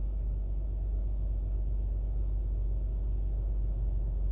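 2012 Jeep Wrangler's 3.6-litre V6 idling steadily just after being restarted, a low even rumble.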